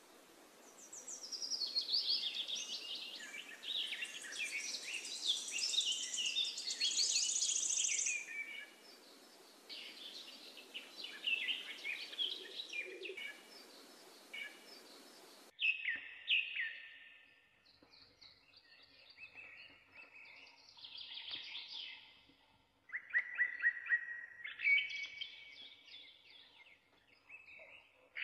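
Many birds chirping and singing, with overlapping quick calls. About halfway through, the background hiss cuts off abruptly and the calls go on more sparsely.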